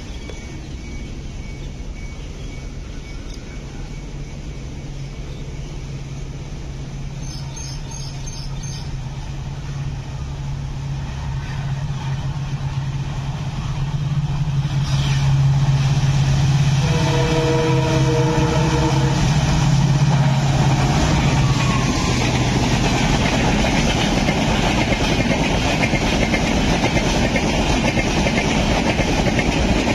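WDP4B diesel locomotive hauling an express through a station at speed. Its engine drone grows louder as it approaches, and about halfway it sounds a multi-note horn for roughly two seconds. The engine tone then gives way to the steady rush and rumble of the coaches rolling past close by.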